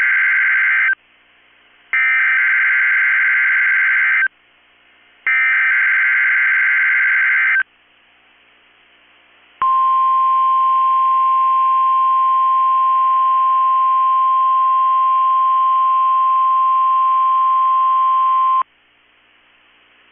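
NOAA Weather Radio Emergency Alert System signal: the end of one SAME digital header burst and two more, each a buzzing electronic data burst of about two seconds separated by a second of hiss, then the steady 1050 Hz warning alarm tone held for about nine seconds and cutting off sharply to faint radio hiss. The header, which carries the Required Weekly Test code, announces a test tornado warning.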